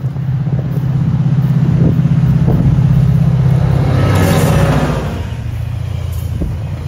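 SunRail commuter train going by with its diesel locomotive's engine drone loud and steady, easing off after about five seconds. A short rush of hissing wheel-and-rail noise comes about four seconds in.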